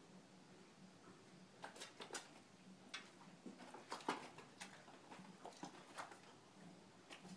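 A horse moving in a stall: scattered light clicks and knocks at irregular intervals, the loudest about four seconds in, over a faint steady hum.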